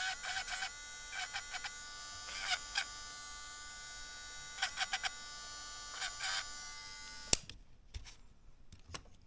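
Small handheld electric drill or rotary tool running with a steady whine. It swells briefly several times as it bites into a plastic part to clean it up for a fit. It is switched off with a sharp click about seven seconds in, and a few light handling clicks follow.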